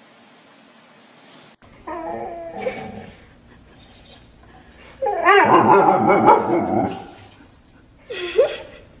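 A dog yelping, whining and barking in bursts, loudest in a dense flurry about halfway through. A faint steady hiss cuts off abruptly before it starts.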